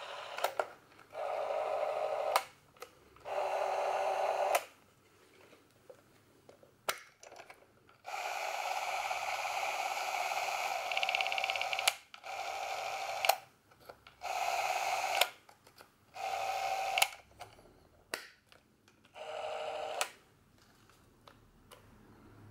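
Bauer C 1 M Super 8 camera's electric drive motor and film transport running in about six short runs of one to four seconds each, the longest near the middle, with sharp clicks of the trigger and controls between runs.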